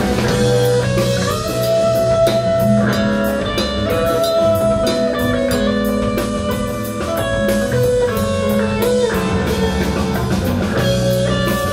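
A live band playing an instrumental passage, led by a Telecaster-style electric guitar over bass, keyboards and drum kit, with steady drum strokes and held melodic notes.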